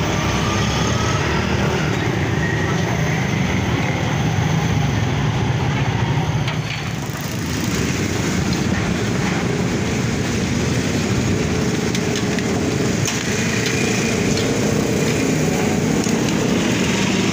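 Samosas deep-frying in a large wok of hot oil: a steady, loud sizzling hiss with crackles, over a low steady rumble.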